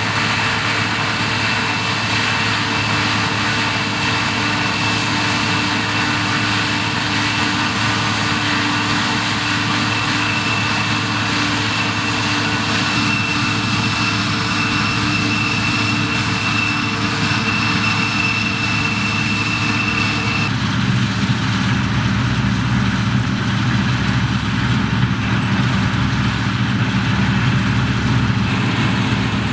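Deutz-Fahr TopLiner 8 XL combine harvester running steadily while cutting wheat, with a thin, steady high whine over the machine noise. About two-thirds of the way through, the sound changes abruptly to a deeper, heavier engine note.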